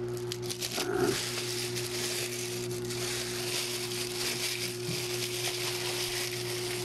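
Plastic courier mailer bag crinkling and crackling steadily as it is handled and worked open by hand, over a steady low hum.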